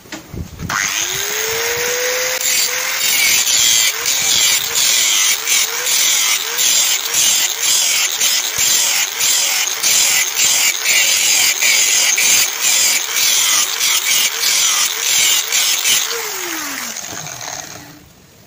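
Angle grinder cutting into a leaf-spring steel knife blank: the motor spins up about a second in, its note dips again and again as the disc bites into the steel, then it is switched off and winds down near the end.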